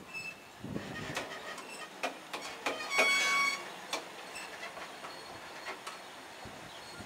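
Eaos open gondola freight wagons rolling slowly past, their wheels knocking and clicking over the rail joints. About three seconds in a brief, loud, high-pitched wheel squeal rings out for about half a second.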